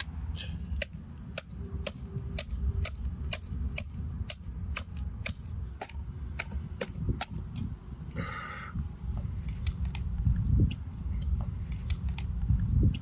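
A large kitchen knife cutting through a raw catfish head on a wooden board, carving out the gills: a run of small crunches and sharp clicks as the blade goes through gill cartilage and bone.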